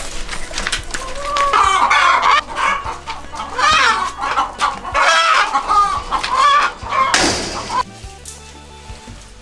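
Domestic hens calling loudly over and over in alarm at being held upside down by the legs, followed by a short rushing burst about seven seconds in, after which the calls stop.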